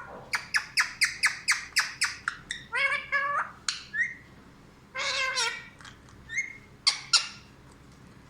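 Pet parrot calling and squawking: a fast run of sharp calls at about four a second, then longer harsh squawks in bursts, ending with two sharp calls.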